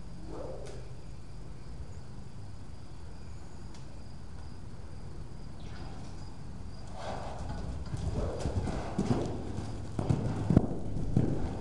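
Hoofbeats of a paint horse running loose on the dirt footing of an indoor arena. They start about seven seconds in and grow louder as the horse comes close.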